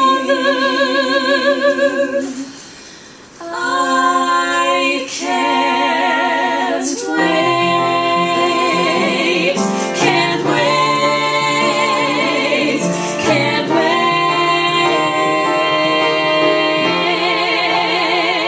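Three women's voices singing long held notes together in harmony, with vibrato. They break off briefly about two and a half seconds in, then come back, and from about seven seconds in lower notes join underneath.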